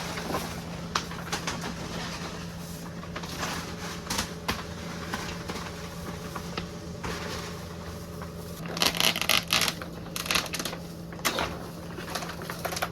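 Thick plastic grain bag rustling and crackling as it is cut and handled, with a loud flurry of crinkling about nine seconds in. A steady engine hum runs underneath.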